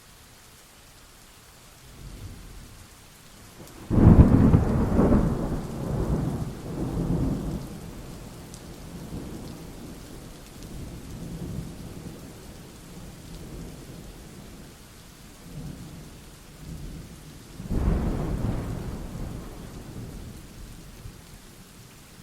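Steady rain with two loud thunderclaps. The first crack comes about four seconds in and rolls on in several surges for about four seconds, low rumbling follows, and a second peal comes near the end and fades.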